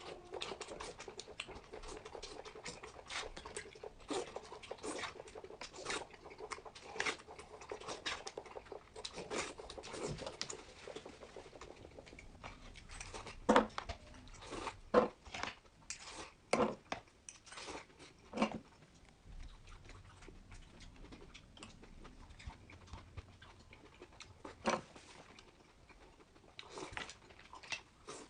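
A person eating and chewing food, a dense string of small mouth clicks and chewing sounds, with a run of louder sharp clicks about a second and a half apart around the middle.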